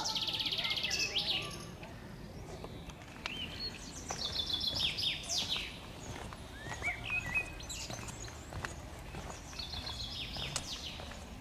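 Songbirds singing: four short phrases of quick, high repeated notes, each ending in downward sweeps, spaced a few seconds apart. Faint footsteps on stone steps underneath.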